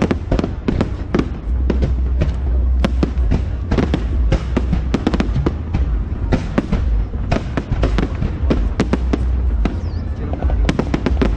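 Fireworks display: aerial shells bursting in a rapid, continuous barrage of sharp bangs, several a second, over a steady low rumble.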